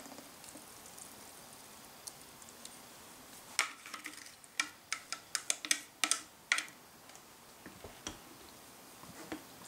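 Wooden chopsticks knocking and scraping against the rim of a glass bowl: a run of about a dozen sharp clicks over three seconds, starting about three and a half seconds in, as thick chile marinade is scraped out onto pork. Near the end come a few softer clicks as the chopsticks start stirring the meat in a ceramic bowl.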